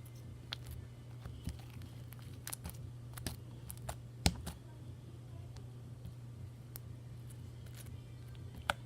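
Slime being squished and stretched by hand, giving scattered small clicks and pops at irregular intervals, with a sharper pop about four seconds in, over a steady low hum.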